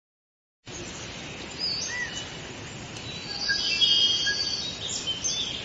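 Birds chirping and whistling in short calls over a steady outdoor background hiss. It starts abruptly about half a second in.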